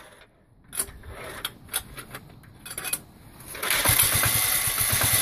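6 horsepower diesel engine cold-starting at −5 °C with stiff 15W-40 oil: after a brief quiet, a few scattered knocks, then it catches about three and a half seconds in and keeps running with a rapid, even beat.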